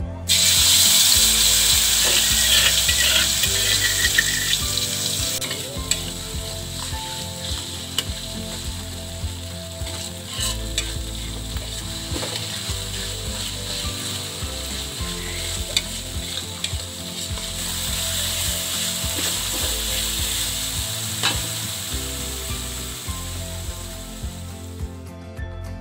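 Food frying in hot oil in a pan, the sizzle starting suddenly right at the start as the ingredients go in, with scraping and clicking from stirring. The sizzle is loudest for the first few seconds, eases, swells again in the second half and stops shortly before the end.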